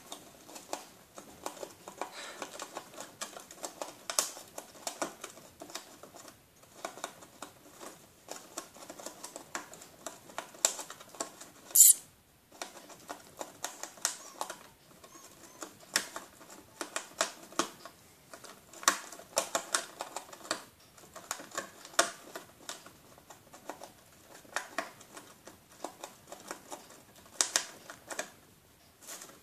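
Gerbil gnawing and shredding a cardboard box: rapid, irregular clicking and crunching of teeth tearing cardboard. One much louder noise about twelve seconds in.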